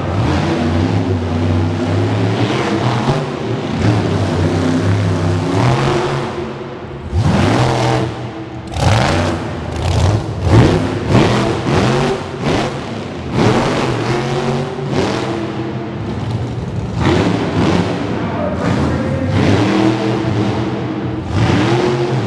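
Monster truck engine revving hard in repeated surges, its pitch sweeping up and falling back again and again, after a steadier stretch in the first few seconds.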